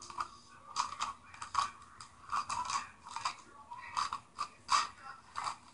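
Gift wrapping paper crinkling and rustling in irregular crackles as a baby pulls at a present.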